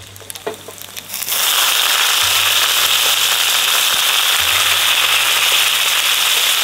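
Jungle fern dropped into a wok of hot oil with garlic, shallots and dried shrimp: after a few faint clicks, a loud, steady crackling sizzle starts about a second in and holds as the fern is stir-fried.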